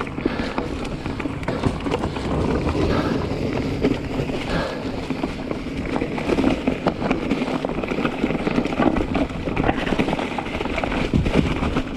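Mountain bike ridden over a rocky, leaf-covered trail: tyres crunching through leaves and the bike rattling and clattering over rocks in quick, irregular knocks, over a steady low rumble.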